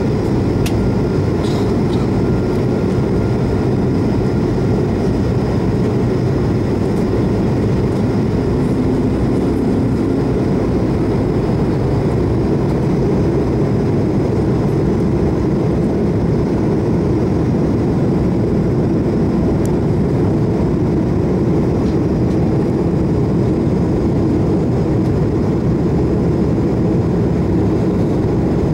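Steady, loud jet airliner cabin noise from a window seat beside the engine of an Airbus A220-300, its Pratt & Whitney PW1500G geared turbofans running at cruise-type power in flight. It is mostly a deep, even rumble with a faint steady whine above it.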